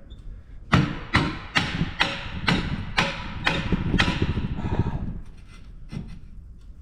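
A hammer striking repeatedly, about eight hard blows at a steady two or so per second, then a couple of fainter knocks.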